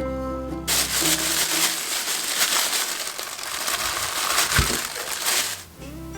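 About five seconds of dense noise made of many small crackles from hands-on kitchen food preparation, with one sharp knock near the end. Background guitar music drops out while it runs and comes back at the end.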